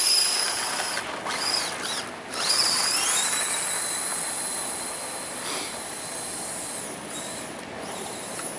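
RC crawler's electric drive motor and gearbox whining as it drives a snow plow: the pitch rises as it speeds up, breaks off twice in the first couple of seconds, rises again and then holds steady.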